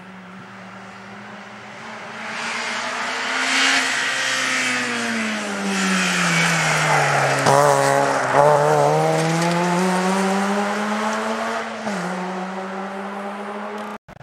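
Rally car's engine passing on a special stage. It swells in about two seconds in, and its note falls as the driver lifts off into a corner, then climbs again as the car accelerates out. Near the end it drops sharply at a gear change and fades away.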